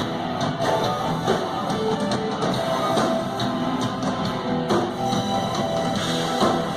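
Rock-and-roll band playing, guitar over drums.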